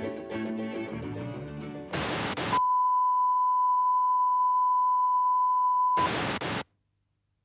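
Plucked-string music for about two seconds, cut off by a short burst of static, then a single steady test tone held for about three and a half seconds, ended by another brief burst of static after which the sound cuts out: the line-up tone and noise at the end of a broadcast tape.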